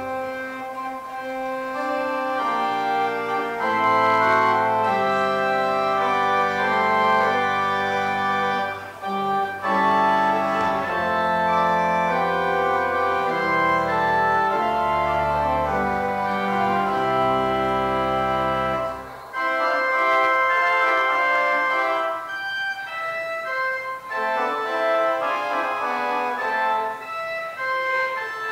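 Organ playing a postlude at the close of a church service: held chords that change every second or so over a bass line. About two-thirds of the way through, the low bass notes drop out while the higher chords continue.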